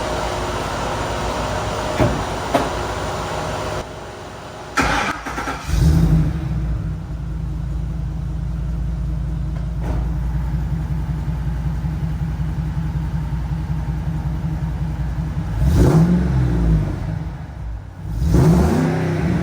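Ford F-150's 5.4-litre three-valve V8, already warm, started through a Borla Pro XS muffler on a full 3-inch exhaust with no catalytic converters. After a steady hum, the starter cranks about five seconds in and the engine catches into a steady, fairly quiet idle. It is then blipped twice near the end, pitch rising and falling each time.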